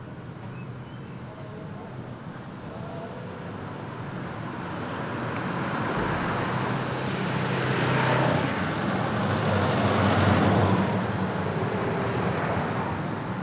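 Road traffic passing along a street: tyre and engine noise swells over several seconds, is loudest about eight and ten seconds in, then fades as the vehicles move away.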